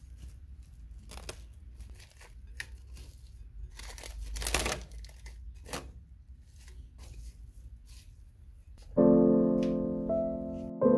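Plastic cling film crinkling and tearing as it is stretched over a glass mixing bowl, with a longer, louder tear about four seconds in. Piano music comes in loudly near the end.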